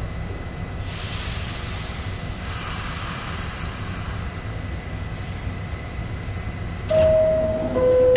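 Steady low rumble of an NYC subway car, with a hiss of air for a few seconds about a second in. Near the end comes the loudest sound: the two-note falling door-closing chime, warning that the doors are about to close.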